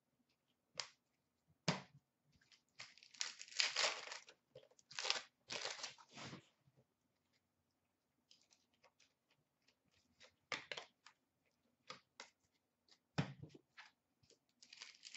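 Hands handling 2008-09 Upper Deck Series 1 hockey cards and their pack wrappers. Cards are flicked through, and a wrapper is torn and crinkled, in short scattered rustles with a few sharp clicks.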